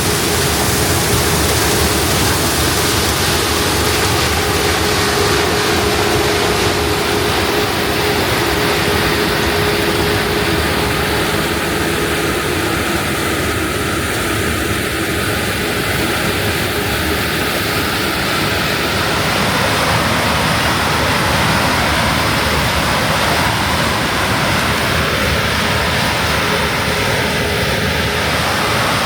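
Case IH 9260 Axial-Flow combine harvester running steadily under load: a loud, even machine rush with a constant hum.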